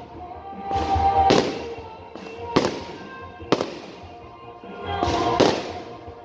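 Aerial fireworks shells bursting overhead: two long, drawn-out bursts, swelling and fading, about a second in and about five seconds in, with two sharp cracks between them. Steady music plays underneath.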